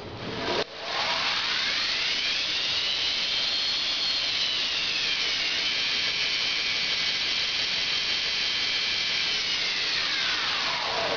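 Zoomie Model 66 2x72 belt grinder started with a click: its 1 HP motor on a variable-speed drive whines up to speed over a few seconds, eases back a little and runs steadily, then winds down near the end.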